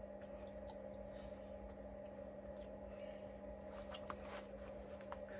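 A few faint clicks and taps as a small hot sauce bottle is handled and dabbed over tacos, over a steady low hum.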